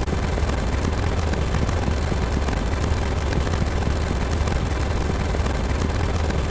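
Loud, steady rumbling noise with a deep low hum underneath and hiss across the top, unchanging throughout.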